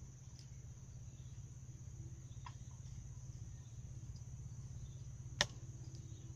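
Steady, faint high-pitched chorus of insects over a low steady hum, with one sharp click about five seconds in.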